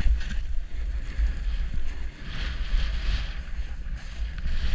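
Wind buffeting the camera microphone during a fast downhill run on snow, a gusty low rumble, with the hiss of the skis or board sliding over the snow swelling about halfway through.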